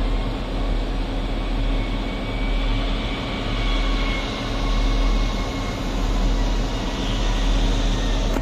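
Heavy equipment's engine running steadily with a deep rumble, heard from inside its cab as the machine drives along.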